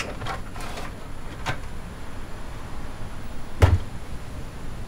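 Espresso machine being pushed into a kitchen cupboard: a few light knocks and scrapes, then one heavier thump about three and a half seconds in as the cupboard door shuts.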